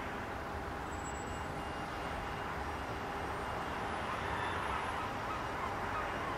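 Long Island Rail Road diesel trains running steadily, a low engine rumble with a faint steady tone over it, swelling slightly about four seconds in as the train creeps closer.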